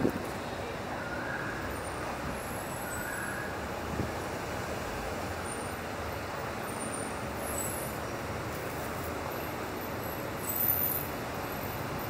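Steady background traffic noise from surrounding city streets, with a brief knock near the start and another about four seconds in, and a short louder swell near the end.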